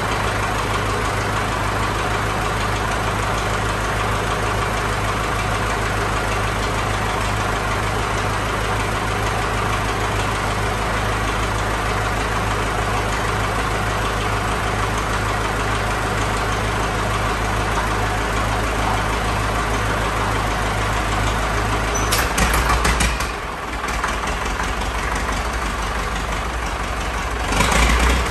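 International TD9 crawler's freshly overhauled gas-start diesel engine running steadily at idle. Near the end come two brief louder bursts, after which the engine note changes.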